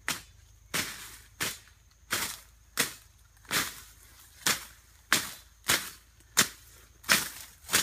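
Machete slashing through grass and bush, swung back and forth: a sharp swishing cut about every two-thirds of a second, a dozen strokes in a steady rhythm.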